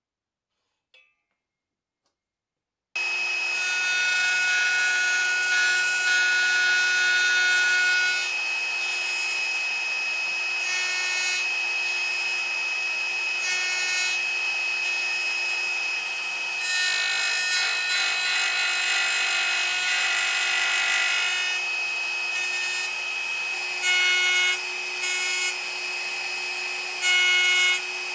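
Near silence for about three seconds, then the milling machine's spindle and router bit start cutting into the end of an upright wooden board. The cut is a loud, steady rasping hiss under a high whine, with shorter tones that switch on and off as the machine moves.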